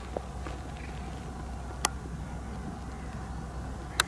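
Steady low outdoor background rumble, broken by two sharp clicks about two seconds apart, the second near the end.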